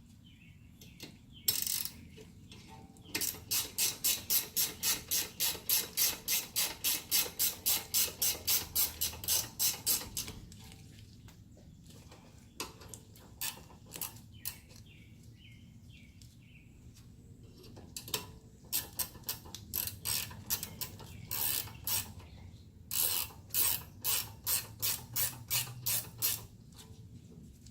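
Hand ratchet wrench clicking as bolts are turned during brake reassembly. It gives a steady run of about four clicks a second, then after a pause shorter, irregular runs of clicks.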